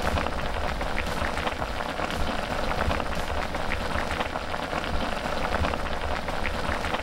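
A pot of instant ramen with soft tofu and an egg at a hard boil: a steady, dense bubbling and popping.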